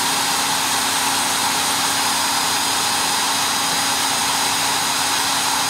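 Cordless drills running steadily at high speed, driving the pinions of a bevel-gear differential gearbox: a constant whir of drill motors and meshing gears with a steady whine over it.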